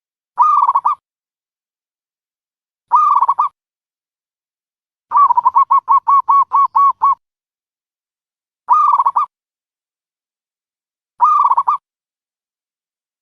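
Dove calling: four short cooing calls of about half a second each, spaced a few seconds apart, and in the middle a run of about nine quick, evenly repeated coo notes lasting two seconds.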